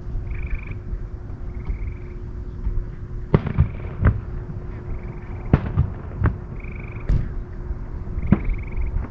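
Far-off fireworks shells bursting, heard from about 4,000 feet away: about six sharp booms at irregular intervals, starting about three seconds in. Short, high pulsed frog trills repeat every second or so throughout, over a steady low outdoor rumble.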